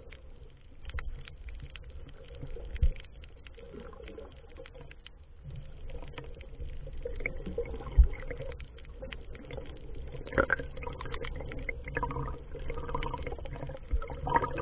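Muffled underwater sound through an action camera's waterproof housing as it moves through the water: a low rumble of water movement with scattered sharp clicks and a few louder thumps, the loudest about eight seconds in.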